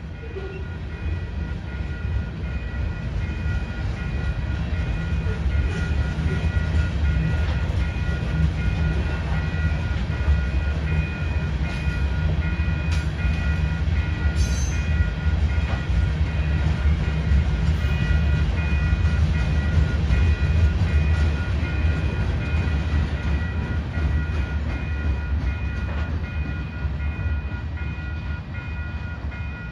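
Train rolling past: a heavy low rumble that builds to a peak about two-thirds of the way through and then eases off, with a steady high whine held throughout.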